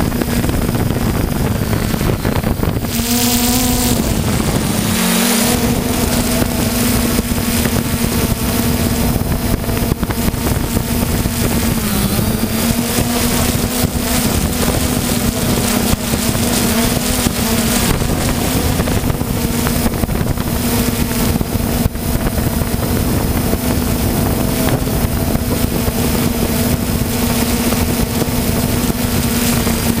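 Quadcopter drone's motors and propellers humming at a steady pitch, with wind noise on the microphone; the pitch dips briefly a few seconds in and once more later.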